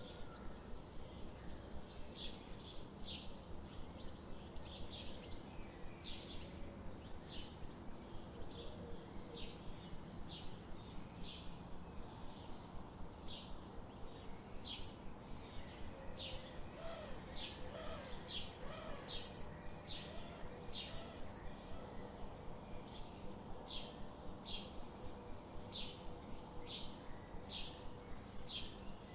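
Birds chirping: short, high chirps repeating about once or twice a second over a steady low background noise, with a few fainter, lower warbling calls partway through.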